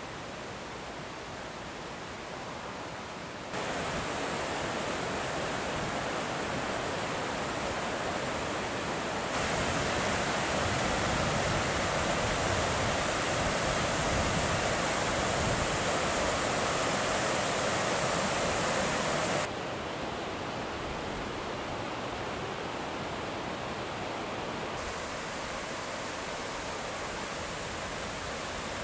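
Rushing mountain river tumbling over boulders in whitewater rapids: a steady rush of water. It gets abruptly louder a few seconds in and again about nine seconds in, then drops back in two steps at about twenty and twenty-five seconds.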